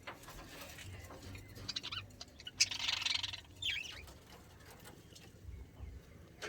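Pet budgerigars chirping: a few short high calls about three seconds in, with faint clicks and scratches between.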